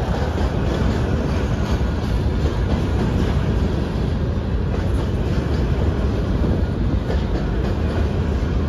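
Covered hopper cars of a freight grain train rolling past: a steady, loud low rumble of steel wheels on the rails, with a few faint clicks.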